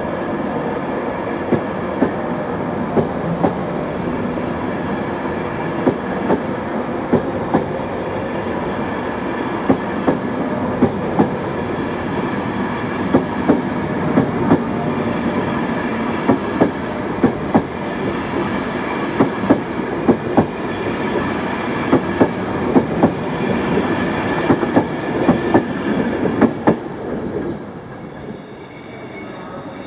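A rake of Mark 4 coaches running past at platform level: a steady rumble with wheels clicking over rail joints at uneven intervals. The sound drops away suddenly near the end as the last coach clears.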